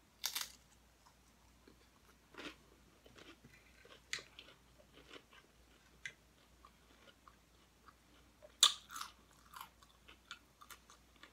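Close-up eating of nachos: sharp crunches of tortilla chips being bitten, a few seconds apart, with a quick cluster of three about three-quarters of the way through, and soft wet chewing clicks in between.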